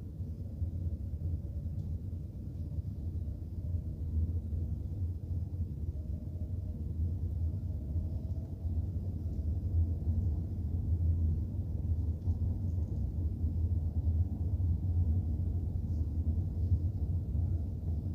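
Steady low rumble of a car driving, engine and tyre noise picked up by a dash cam inside the cabin, with a faint whine rising in pitch about a third of the way in and again near the end.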